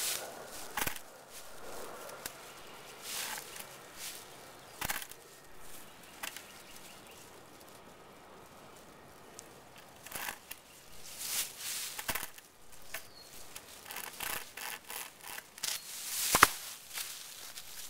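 Rope chainsaw's chain sawing back and forth through a pine branch in uneven strokes, coming faster near the end, with a sharp crack about 16 seconds in.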